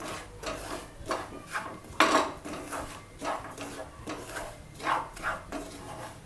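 Wooden spatula scraping and stirring semolina (Bombay rava) around a non-stick frying pan as it is roasted, in repeated short strokes roughly two a second, with one louder scrape about two seconds in.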